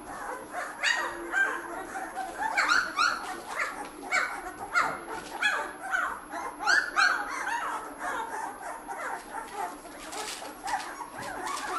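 Two-week-old Bernese mountain dog puppies whining and squealing: a string of short, high calls that fall in pitch, coming about once a second and thinning out after about eight seconds.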